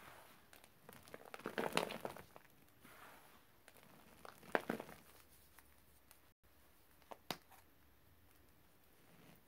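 Gloved hands crushing, scooping and dropping dry chalky powder clumps on a plate: a few short bursts of soft crunching and crumbling, about one and a half, four and a half and seven seconds in, faint in between.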